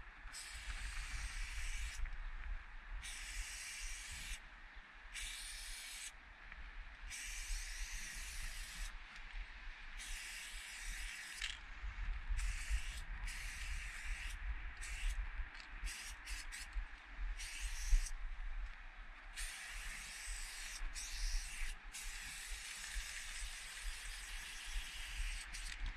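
Aerosol spray paint can hissing in on-and-off bursts of one to two seconds, with a run of short, quick blasts about halfway through, over a steady low rumble.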